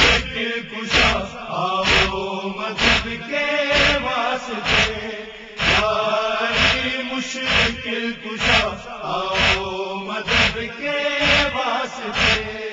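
Male chorus chanting a noha refrain, held and in unison, over matam: rhythmic chest-beating strikes about once a second.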